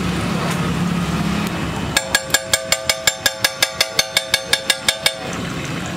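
Steady background noise, then about two seconds in a rapid, even metallic tapping with a ringing tone, roughly five strikes a second, that goes on for about three seconds and stops abruptly.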